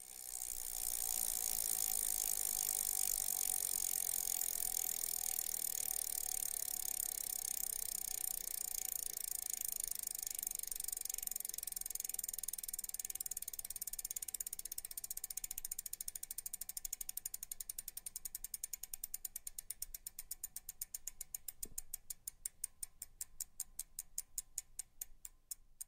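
Bicycle freewheel hub ticking as a spinning wheel coasts down: a fast buzz of clicks that slows steadily until the clicks stand apart, a few a second near the end.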